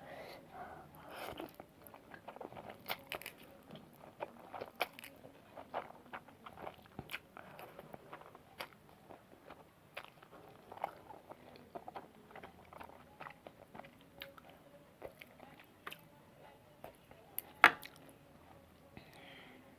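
A person eating noodles close to the microphone: steady chewing with many short wet mouth clicks and smacks, and one sharp, louder click near the end.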